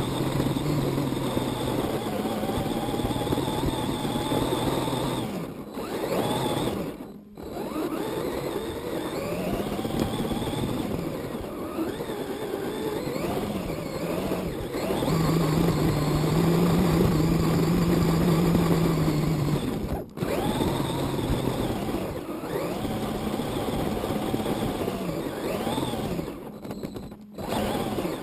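1:10-scale RC car driving, heard from its onboard camera: motor and gear whine rising and falling with the throttle. The sound cuts out briefly about seven seconds in, again about twenty seconds in, and near the end.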